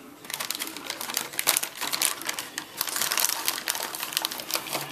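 Packaging around a sealed autographed baseball being torn and crinkled open by hand: a dense, irregular run of crackles and clicks.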